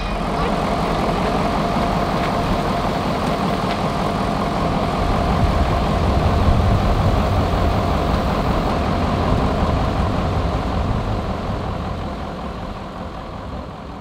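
Vehicle engine idling steadily, getting quieter over the last couple of seconds.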